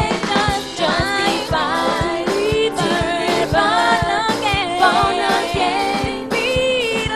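Gospel singers performing a praise song over band accompaniment, with a steady beat.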